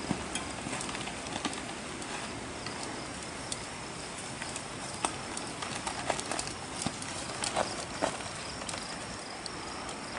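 E-bike tyres rolling over a rocky dirt trail, crunching and knocking over loose stones, with scattered sharp clicks that come thickest in the second half.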